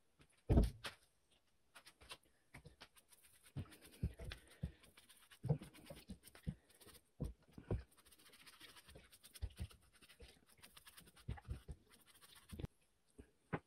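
A small brush scrubbing an old alternator's stator windings and diode block, wet with soapy water, in irregular strokes with scraping, knocks and light splashes. There is one louder thump about half a second in.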